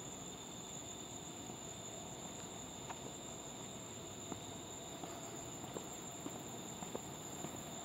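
Steady high-pitched chorus of night insects, faint, with a few soft ticks scattered through the second half.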